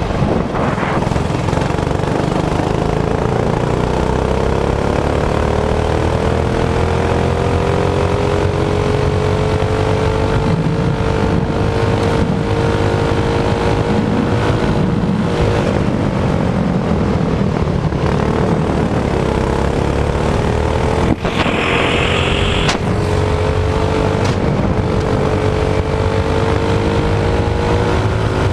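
Racing go-kart engine running at speed, heard from the driver's seat. Its pitch climbs over the first few seconds, holds steady, drops briefly past the middle, then climbs again as the kart picks up speed.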